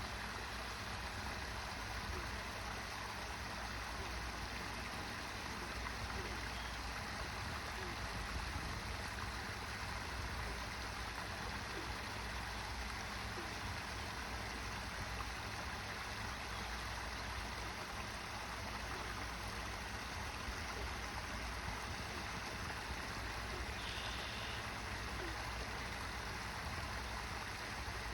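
Backyard waterfall: water falling and running in a steady, even rush.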